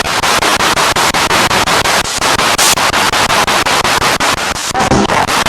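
Spirit box radio scanning through stations: loud hissing static chopped into rapid, even pulses by the sweep, about eight to nine steps a second.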